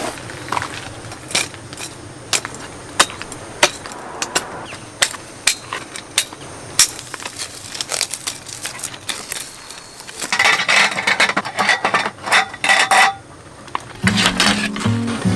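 Camping gear being handled: a run of light clicks and knocks as a bag and a strap on a tarp pole are worked, then a few seconds of dense scratchy rustling about ten seconds in. Background music comes in near the end as wooden hanger slats are handled.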